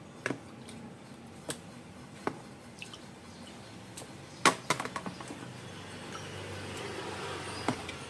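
Scattered sharp knocks and clicks, a quick run of them about halfway through, over a soft rushing noise that builds near the end.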